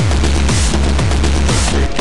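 Electronic dance music with a heavy kick drum beating about twice a second over a deep, steady bass, and a hissing high hit about once a second.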